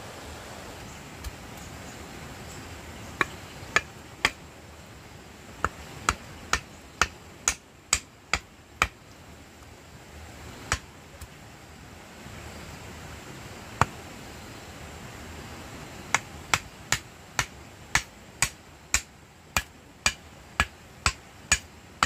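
A small wooden stake being hammered into the ground, sharp knocks in quick runs of about two strokes a second with pauses between runs.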